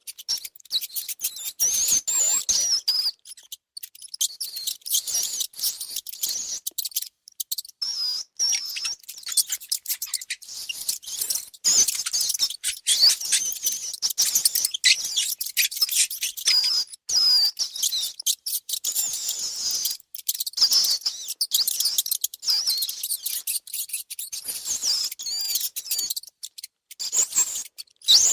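Mice squeaking: many short, wavering high-pitched squeaks in quick runs, mixed with small scratching and rustling clicks.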